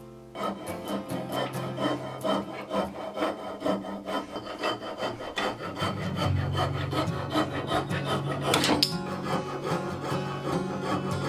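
Coping saw cutting through the end of a walnut hatchet handle and its wooden wedge, trimming them flush with the head. Quick, even back-and-forth strokes, about three a second.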